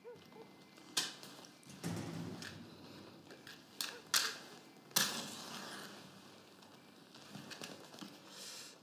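A cigarette being lit: a few sharp clicks and scrapes, the loudest about five seconds in, followed by a short hiss.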